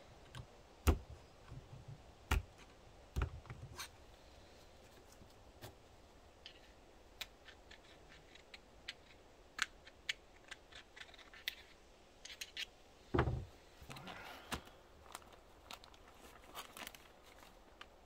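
Hand work on hydraulic cylinder parts and seals: scattered light clicks, taps and scrapes, with a sharper knock near the start and another past the middle followed by a short scraping.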